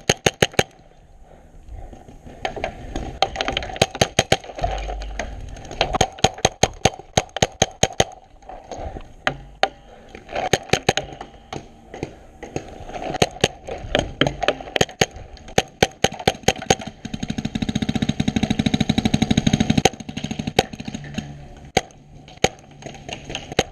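Paintball markers firing in quick strings of sharp pops, several shots a second, stopping and starting again. For a few seconds past the middle a steady rushing noise swells and then drops away.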